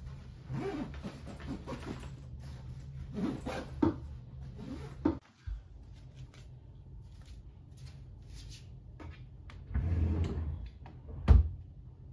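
Rustling and handling of a bag as it is packed, then a bedframe drawer sliding open and stopping with a sharp knock near the end.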